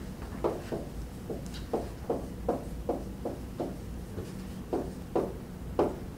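Handwriting with a pen: about a dozen short, irregular taps and strokes as the words are written out, over a low steady hum.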